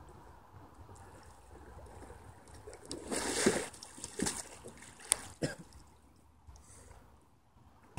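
Water splashing around a kayak being handled in shallow water: a big splash about three seconds in, then a few shorter splashes.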